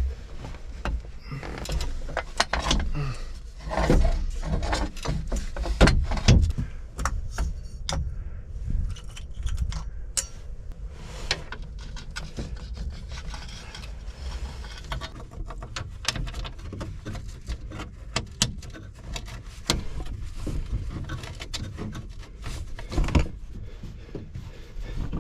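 Hand tools and metal hose fittings clinking, knocking and scraping irregularly while a new crimped hydraulic hose is fitted to a mini excavator, with the loudest knocks a few seconds in.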